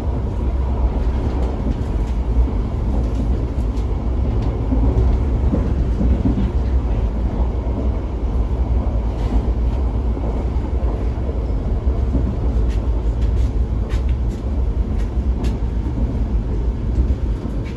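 PESA EN97 electric multiple unit running at speed, heard from inside the carriage: a steady low rumble of wheels on rail and running gear, with scattered light clicks and rattles in the second half.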